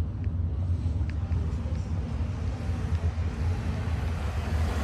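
A car engine idling: a steady low rumble with a slightly uneven pulse.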